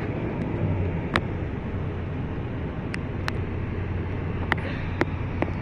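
Steady road and engine hum inside a moving car, with a few sharp clicks scattered through it.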